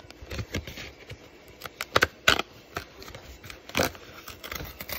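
Fingers picking at and tearing open a perforated cardboard door on a tea advent calendar: a run of scrapes and sharp paper snaps, the loudest about two seconds in and again near four seconds.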